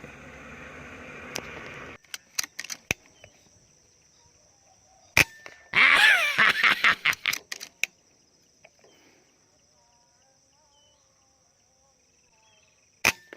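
Air rifle shots at rice-field birds: a sharp crack about five seconds in, followed at once by nearly two seconds of loud noisy commotion. Faint bird calls follow, and a second sharp crack comes near the end.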